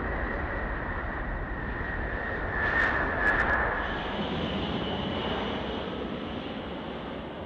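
Boeing B-52 Stratofortress's eight turbofan engines at takeoff power: steady jet noise with a high whine. It swells as the bomber passes about three seconds in, with a few sharp crackles, then eases as it climbs away.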